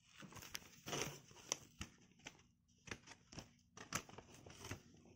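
Vinyl record and its sleeve being handled: uneven rustling of the sleeve with a string of small clicks and knocks.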